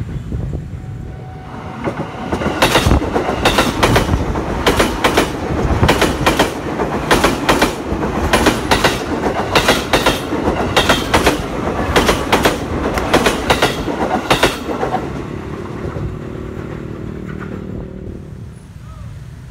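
Steel wheels of a JR 205 Series electric commuter train clattering over a bolted rail joint: sharp clacks in quick pairs as each bogie's axles cross the joint, over a steady rumble, for about twelve seconds. The clatter stops about fifteen seconds in and the train's noise dies away.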